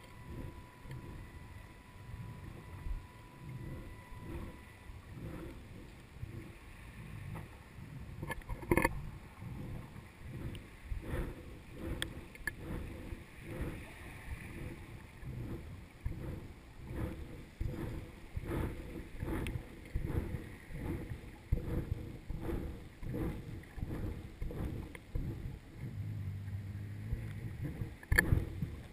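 Muffled underwater sound from a GoPro in its waterproof housing as it is jigged on a hand line. Irregular low thumps and water rushing go on throughout, with a few sharper knocks, one about nine seconds in, one about twelve, and one near the end.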